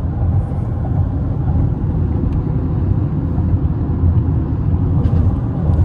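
Steady road and engine noise inside a Honda car's cabin cruising at about 54 mph, a low even rumble.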